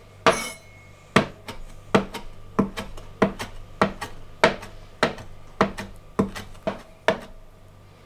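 A kitchen knife chopping parsley leaves on a chopping board: about a dozen sharp knocks at a steady pace of roughly two a second, stopping near the end.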